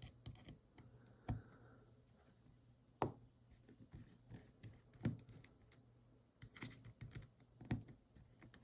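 Faint, scattered small metal clicks and taps of a screwdriver and small screws as two screws are taken out of a folding knife's frame, with a few sharper clicks about two seconds apart among fainter ones.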